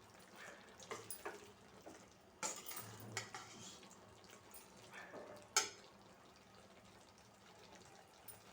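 A spoon clinking and scraping against a cooking pan as masala powder is stirred into the gravy base: a few scattered knocks, the sharpest about five and a half seconds in, then quieter.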